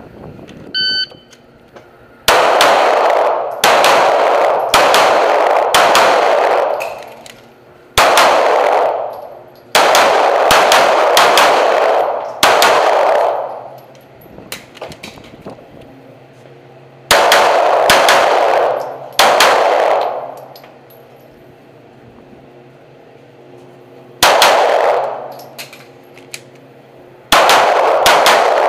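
A shot timer's start beep about a second in, then pistol shots fired mostly in quick pairs in several strings, with gaps of a few seconds between them. Each shot rings on in the hard-walled indoor range.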